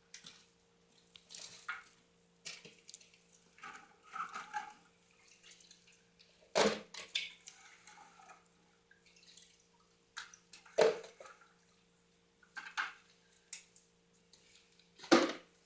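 Scattered clinks and knocks of metal pieces being handled, with three sharper knocks about seven, eleven and fifteen seconds in, over a faint steady hum.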